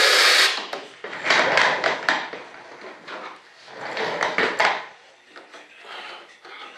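Composite wing skin being pried and flexed free of its mold, giving three loud bursts of rasping, cracking noise: a sharp one at the start, another about a second in, and a third around four seconds in.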